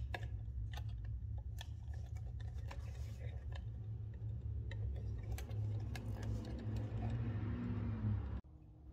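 Scattered light clicks and taps as a restored 1970s flashlight is handled and turned over: its case, belt clip and lamp head knocking against the hands. A steady low hum runs underneath, and both cut off suddenly shortly before the end.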